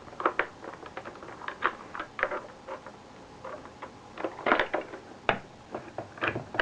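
Irregular clicks and knocks of a video camera's casing being handled as its metal bottom plate is prised off, with a louder clatter about four and a half seconds in and a sharp knock a little after five seconds.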